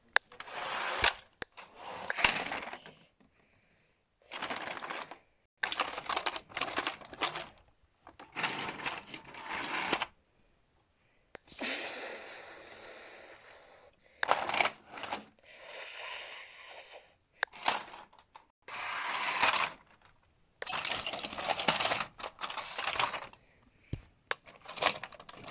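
Irregular bursts of rustling and clattering handling noise with a few sharp clicks, broken by short near-silent gaps.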